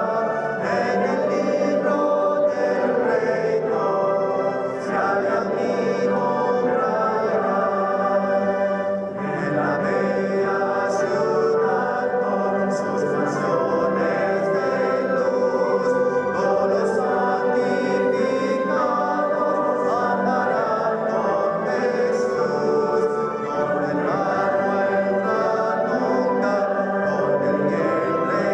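Congregation singing a hymn together, many voices in a steady, continuous flow of sung melody.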